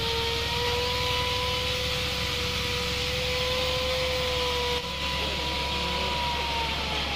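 Steady engine drone with a slowly wavering pitch over a broad hiss, with a brief dropout about five seconds in.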